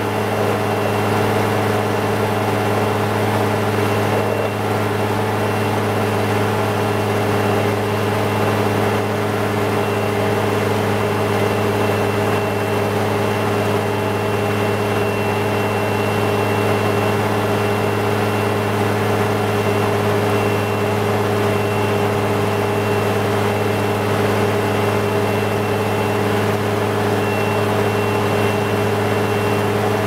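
Diesel engine of a Komatsu GD505A motor grader running at a steady, unchanging speed, heard close to its exhaust stack: a steady low hum with a faint high whine above it.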